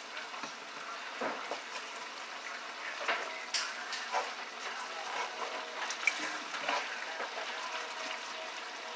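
Catfish sizzling as it fries in a pan, with a few short scrapes of a spatula breaking it up.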